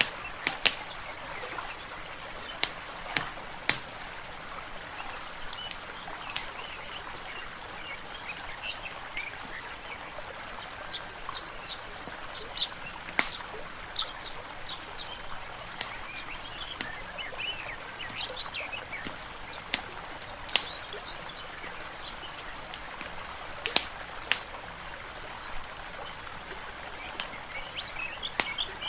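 Mixed nature ambience: a wood fire crackling with sharp, irregular pops over a steady hiss of water, while small birds chirp on and off.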